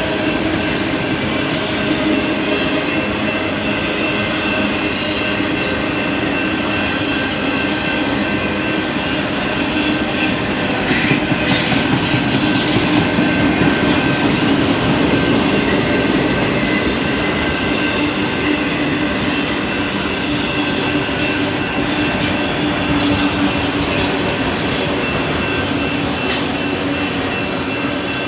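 CSX freight train's cars rolling past on the rails: a loud, steady rumble with thin high whining tones from the wheels, a little louder around the middle.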